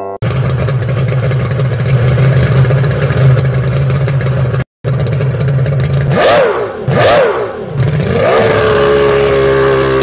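WL915 RC speedboat's electric motor revving up and down twice, then holding a steady whine as the propeller churns the water. Before that, a steady low drone with rushing noise, broken by a brief cut.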